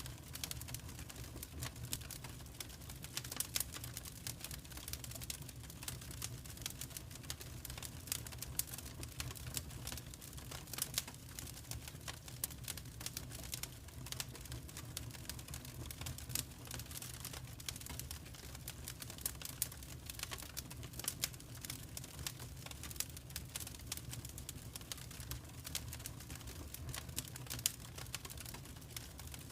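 Wood fire in a fireplace crackling, with many small irregular pops and snaps over a low steady rumble.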